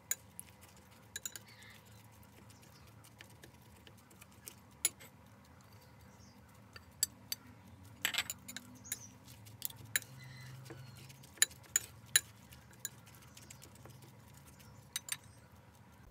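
A metal spoon and fork clinking and scraping against a ceramic plate as chopped leaves are mixed with egg, in irregular sharp clinks.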